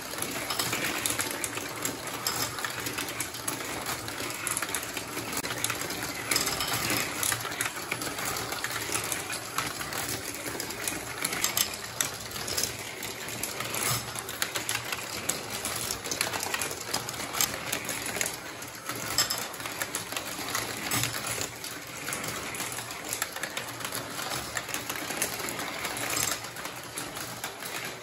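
A steady stream of marbles rattling and clicking through a GraviTrax plastic marble run: many small rolls and impacts overlapping into a continuous clatter.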